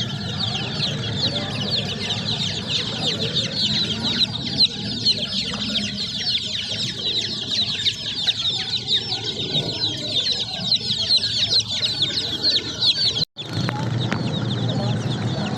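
A brood of baby chicks peeping continuously, many short, high-pitched chirps overlapping without a break. The sound cuts out completely for a moment about thirteen seconds in.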